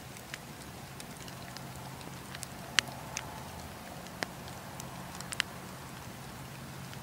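Wood campfire crackling, with irregular sharp pops over a steady low rumble; the loudest pop comes near three seconds in.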